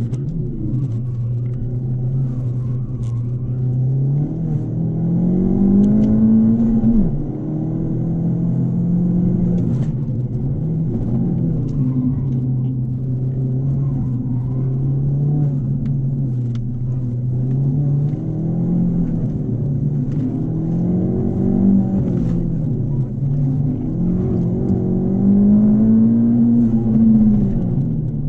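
Ford Fiesta ST180's Stage 4-tuned 1.6-litre turbocharged four-cylinder engine driven hard, heard from inside the cabin. Revs climb and fall again and again: a long climb about four seconds in ends with a sharp drop in pitch near seven seconds, and there are further climbs around twenty and twenty-five seconds in.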